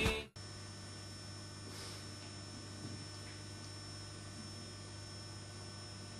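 Music cuts off just at the start, leaving a low, steady electrical mains hum with faint hiss on the recording.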